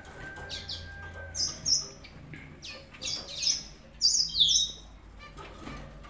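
Domestic canaries chirping in their cages: short, high, falling chirps in small clusters about once a second, loudest about four seconds in.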